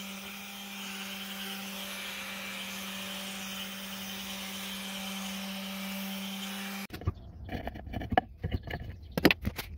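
Random orbital sander with a dust-extraction hose running steadily, sanding a white oak frame piece. It stops abruptly about seven seconds in, followed by a run of light clicks and knocks.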